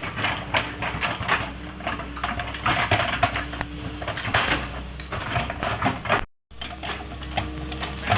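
Doosan 140 wheeled excavator working: diesel engine clatter with rapid irregular metallic clanking and rattling, broken by a short gap about six seconds in.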